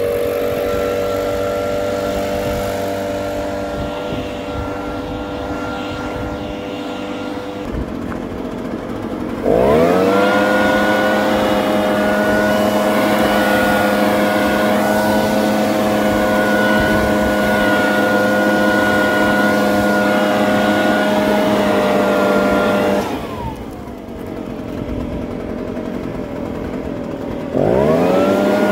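Echo PB-580T backpack leaf blower's two-stroke engine and fan running, with a rush of air. It runs steadily, eases back, then revs sharply up to full throttle about nine seconds in and holds there for some thirteen seconds. It drops back to a lower speed and revs up again near the end. The blower is running well and responding cleanly to the throttle after a new carburettor and a freed-up sticking part.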